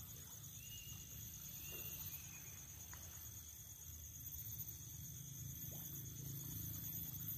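Insects trilling steadily at a high pitch over a low steady background, with a few faint short chirps in the first couple of seconds.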